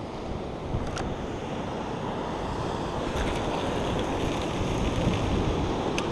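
Wind rushing across the microphone over the steady wash of ocean surf, with a faint click about a second in and another near the end.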